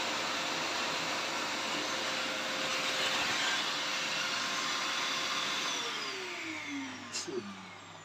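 Arnica Hydra Rain Plus washing vacuum cleaner with water filter running steadily with its nozzle on a carpet, then winding down with a falling whine about six seconds in as the level drops. A click comes about seven seconds in.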